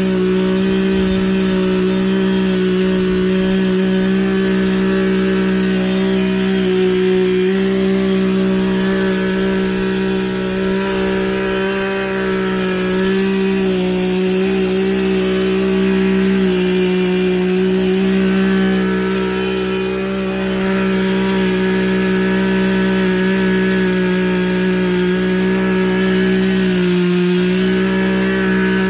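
Poulan Pro two-stroke chainsaw running at high revs with a steady high-pitched tone. Its pitch dips briefly a few times, about halfway through and near the end.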